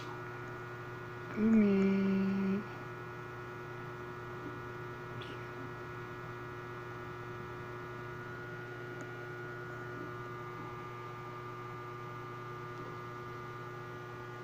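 Steady electrical hum made of several fixed tones.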